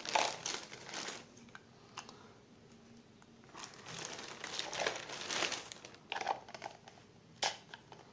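Clear plastic packaging bags crinkling in bursts as toilet cistern fittings, including the flush valve, are handled and pulled out of them. There is a pause of about two seconds between the bursts and a single sharp tap near the end.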